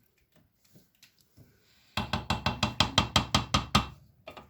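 A rapid, even run of about a dozen sharp knocks, roughly seven a second, lasting about two seconds and starting about two seconds in.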